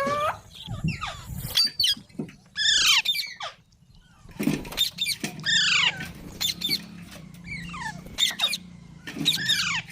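Pet green parrot giving a rapid run of harsh squawking calls, each sliding down in pitch, with a short pause about four seconds in.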